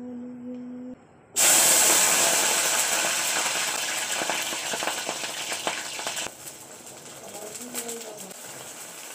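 Food going into hot oil in a pan on a gas stove: a sudden loud sizzle with crackling about a second in, fading over several seconds to a lower, steady sizzle.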